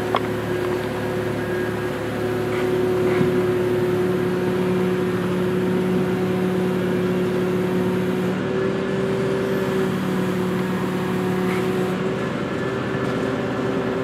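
Forklift engine running steadily while it lifts a section of drill-rig mast: a continuous hum with a few held tones that shift slightly partway through. A single sharp click right at the start.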